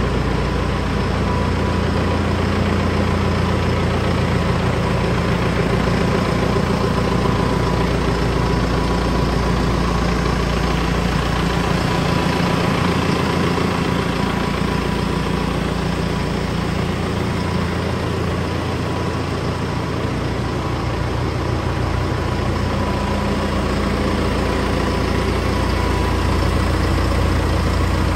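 John Deere 6430 tractor's diesel engine idling steadily.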